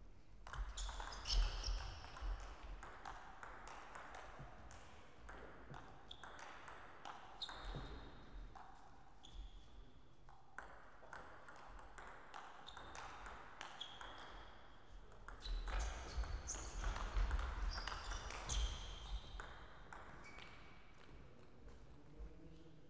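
Table tennis ball being struck back and forth, sharp hollow clicks off the rubber bats and the table during rallies. The busiest exchanges come early on and again about two-thirds of the way through.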